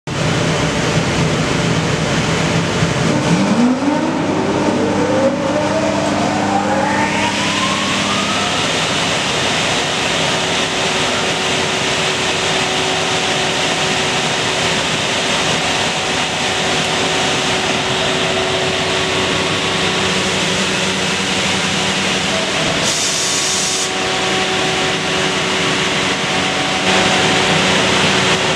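Electric motors of a glue-beam production line's woodworking machinery starting up. One motor spins up with a rising whine over about five seconds, and then the machines run with a steady hiss and hum. About 23 seconds in there is a short burst of hiss.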